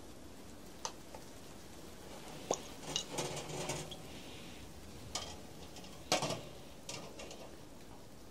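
Cooking utensils knocking and clinking against metal pots and pans, half a dozen separate strikes with a short ring after each, the loudest about six seconds in, over a faint steady hiss.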